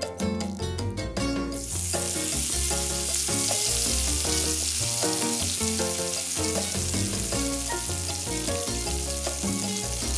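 Turmeric-coated whole sillago deep-frying in hot oil in a wok: a dense, loud sizzle that starts abruptly about a second and a half in, with background music underneath.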